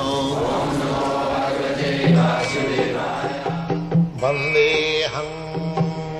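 Devotional intro music: a voice chanting, then from about two seconds in, a plucked string instrument playing over a steady drone.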